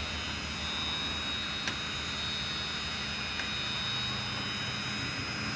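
Steady mechanical rushing hum with a faint high whine, broken by two light clicks a couple of seconds apart.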